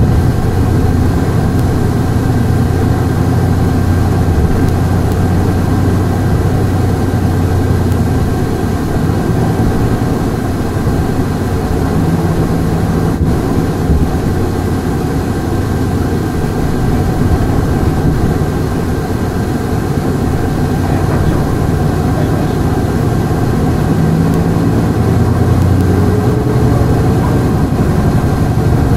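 Hankyu Bus no. 383, a non-step city bus, running with its diesel engine note rising and falling as it drives. The engine eases off about two-thirds of the way through, then picks up again as the bus accelerates near the end. A thin steady high whine sits above it throughout.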